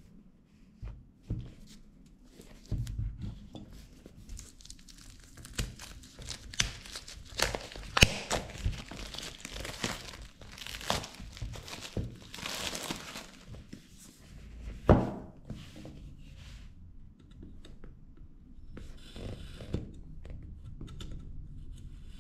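Clear plastic shrink wrap being torn and peeled off a smartphone box, crinkling and crackling irregularly, with two sharp clicks about eight and fifteen seconds in.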